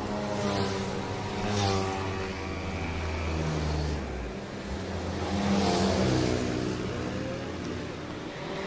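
Road traffic: engines of motor vehicles running and passing, their pitch shifting as they go by, loudest about six seconds in.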